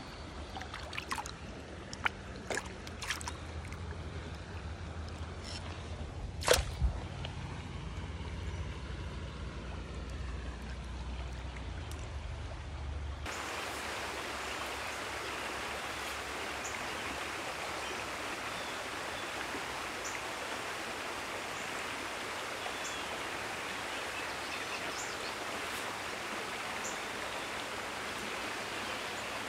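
Water sloshing close to the microphone, a low burble with a few sharp splashes, as a wild brown trout is released into the stream. From about thirteen seconds in it gives way to the steady rush of a small stream's flowing water.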